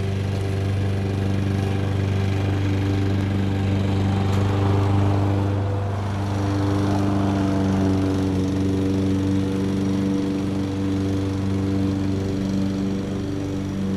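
A lawn mower engine running steadily in the distance over the steady whir of an electric fan, its engine note swelling slightly in the middle.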